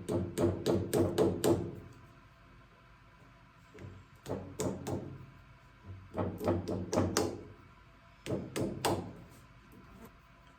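Hammer tapping a new seal down onto the top of a tractor's steering cylinder. It comes in four runs of quick light strikes, several a second, with short pauses between.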